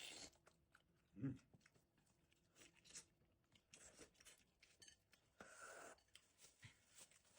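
Near silence broken by faint, scattered rustling and handling noises, with a soft thump about a second in and a longer rustle near the end.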